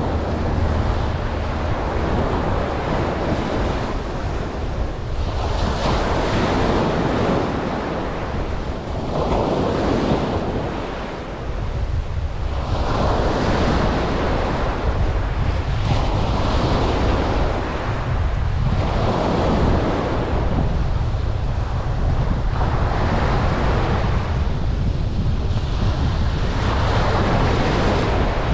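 Ocean waves breaking and washing up a beach, one surge every three to four seconds, over a steady low rumble of wind on the microphone.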